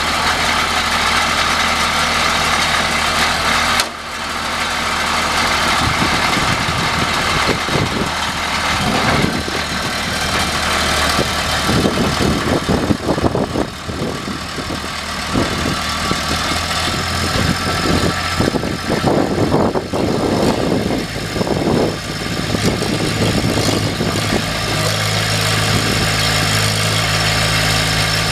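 Allmand TLB425 loader backhoe's diesel engine running, surging irregularly through the middle as its load changes, then settling to a steady idle near the end.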